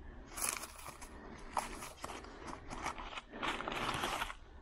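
Loose papers and Polaroid photos being handled and shuffled among floor debris: irregular rustling and scraping with small clicks, with a longer, busier stretch near the end.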